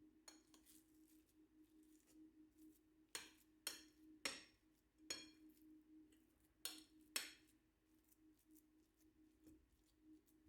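Light clinks of kitchen utensils, about seven sharp strikes with a brief high ring, mostly in the middle seconds, over a faint steady hum.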